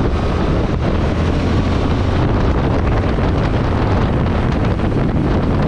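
Heavy wind rush on the microphone of a Yamaha Tracer 7 motorcycle on the move, with the bike's 689 cc parallel-twin engine and road noise rumbling steadily underneath.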